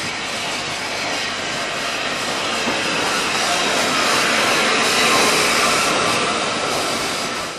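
Small steam tank locomotive and a goods brake van passing close by along the platform: a steady hiss and rumble with no distinct beats, growing louder as the engine comes alongside and loudest about five seconds in.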